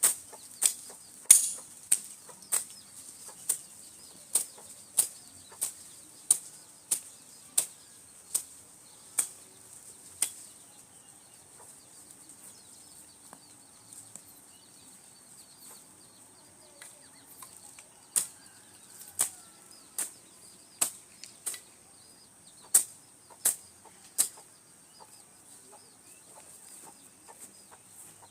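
Rhythmic swishing strokes of yard cleaning by hand, about one a second for ten seconds, then after a pause a second short run.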